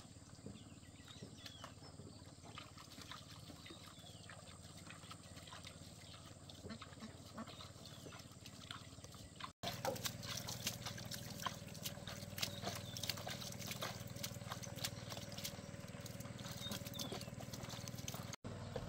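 Hand scooping and flicking liquid from a plastic basin onto cucumber vines: sloshing in the basin and a dense run of small splashes and drips on the leaves. The sound is louder in the second half, after a quieter stretch of outdoor ambience with a few faint chirps.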